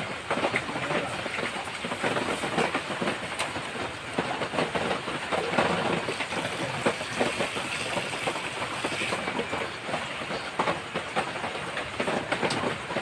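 Heavy rain falling steadily: a dense hiss thick with many small sharp drop hits.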